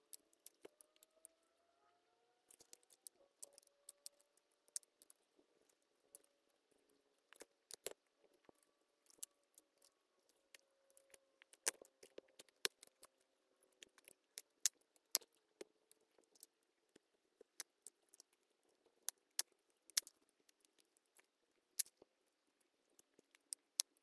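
Wood fire crackling: sharp, irregular pops and snaps, a few a second, over a faint wavering whistle.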